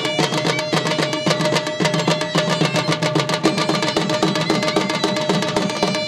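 Two dhol drums beaten rapidly with sticks in a steady, driving dance rhythm, with a surna (shawm) holding long, sustained notes of a melody over the drumming.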